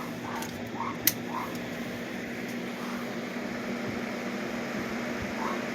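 30-inch Lasko box fan running with a steady rush of air and a steady low hum, a little wobbly. A single sharp click about a second in.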